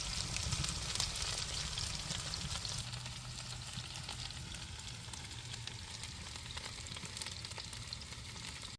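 Pot stickers frying in hot oil, a steady crackling sizzle that slowly grows quieter.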